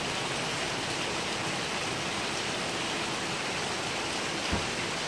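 Steady rain falling, an even hiss, with one brief low thump near the end.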